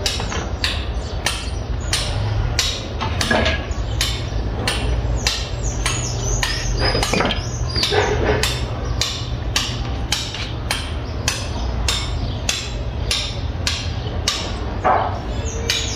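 Steady, rhythmic hammer strikes on a building site, about two blows a second, over a continuous low rumble.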